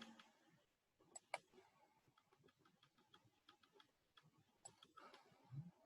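Near silence, with two faint computer-mouse clicks about a second in and a few fainter clicks near the end.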